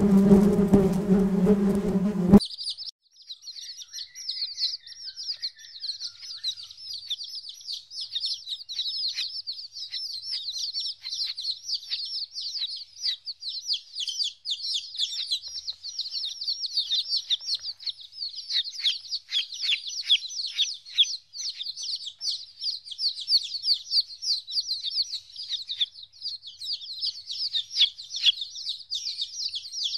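Honeybees buzzing on a hive comb, a steady low drone that cuts off suddenly about two seconds in. Then a group of chicks keeps up a constant high peeping, many quick cheeps overlapping.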